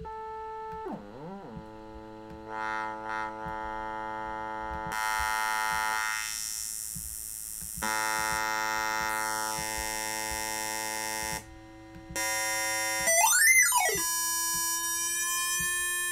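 A browser synthesizer's single Web Audio oscillator sounding a sawtooth tone. About a second in its pitch slides down and back up, then its tone brightens and dulls as the filter is swept. Near the end the pitch swoops up and down, and the tone cuts off when the oscillator is stopped.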